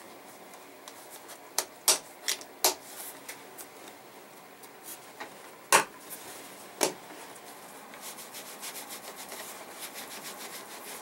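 Leather tool pouch being handled and opened: a handful of sharp clicks, then from about eight seconds in a run of small rapid rubbing and scraping ticks as the leather and the tools inside are worked.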